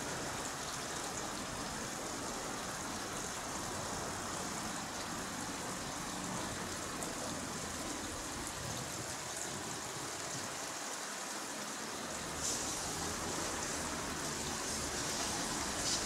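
Steady outdoor background hiss with no distinct source, brightening in its high register for the last few seconds.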